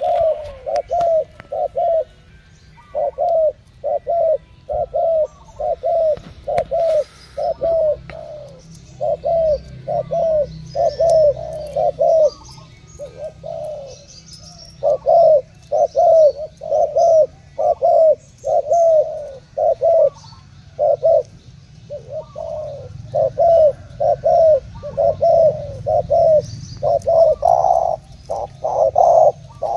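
Spotted doves cooing: short, deep, falling coos about two a second, in runs of several notes broken by short pauses, as two males challenge each other in a cooing contest. Faint chirps of other birds sound higher up.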